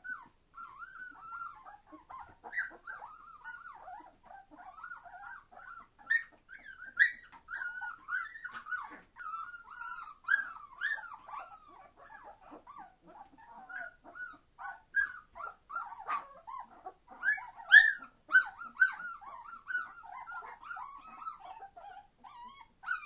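A litter of three-week-old Entlebucher Mountain Dog puppies being very noisy: many short, high puppy cries overlapping without a break, with several louder cries partway through.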